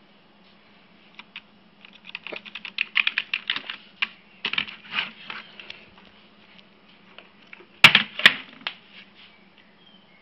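A quick run of sharp clicks and taps over a few seconds, then two loud knocks close together near the end, over the steady low hum of a running eMac computer.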